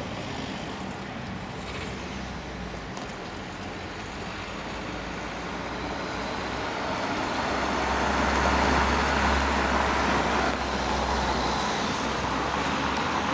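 Road traffic: a motor vehicle's engine and tyres pass by, the rumble growing louder a little before halfway and loudest a little past the middle before easing slightly.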